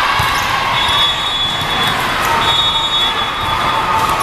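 Steady din of a busy indoor volleyball tournament hall, with two high-pitched squeals, each held for just under a second, one about a second in and one in the middle.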